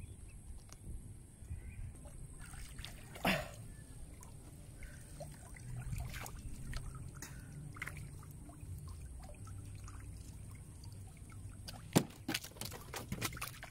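Shallow river water splashing and dribbling as a spearfisher standing beside a canoe works a speared tilapia off his speargun, over a steady low rumble. There is a sharp knock about three seconds in, and a run of clicks and knocks near the end.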